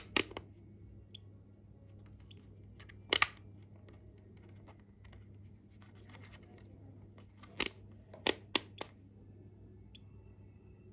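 Rotary selector dial of a Neoteck NT8233D Pro digital multimeter being turned through its positions, giving short, sharp plastic clicks: one near the start, one about three seconds in, and a quick run of four around the eight-second mark.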